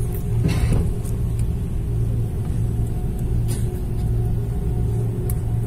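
Airbus A330 cabin noise as the airliner rolls on the ground before takeoff: a steady low rumble of engines and wheels with a constant hum, and a couple of brief rattles.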